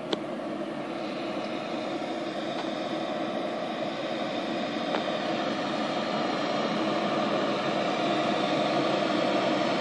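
1994 Simon-Duplex/Saulsbury heavy rescue truck's diesel engine running as the truck drives up, growing steadily louder as it approaches. A single sharp click sounds right at the start.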